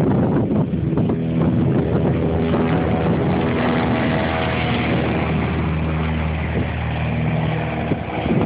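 Radio-controlled model airplane's engine running at takeoff power as the plane lifts off and climbs away, the engine tone coming in about a second in and fading near the end. Wind buffets the phone's microphone throughout.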